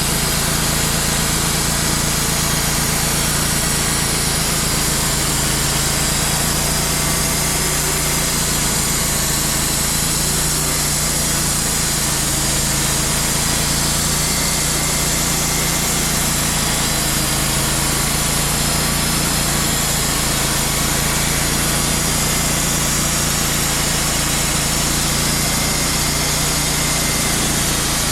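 Wood-Mizer portable band sawmill running steadily, its engine and band blade sawing through a black walnut log, with no pauses.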